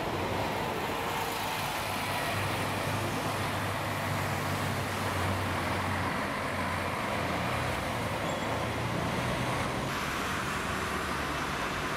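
City street traffic noise: road vehicles and buses running past, with a low engine hum swelling in the middle.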